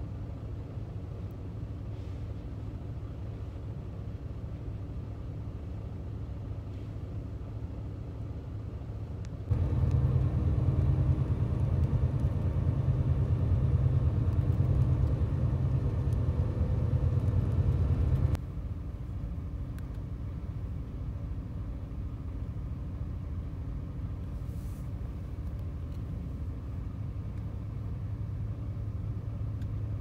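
Cabin noise inside a Willer Express highway bus travelling at night: a steady low rumble of engine and road noise. It is clearly louder through a stretch in the middle, starting and stopping abruptly.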